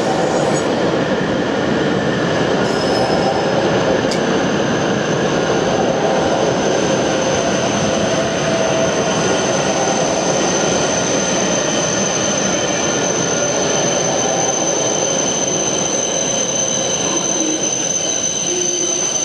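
W7 series Shinkansen train pulling out and running past at low speed: a steady rumble of wheels on rail, with a high whine that grows stronger from about halfway through.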